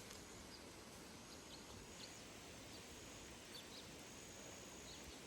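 Near silence: faint outdoor ambience with a low hiss and scattered faint, high chirps and short thin whistles.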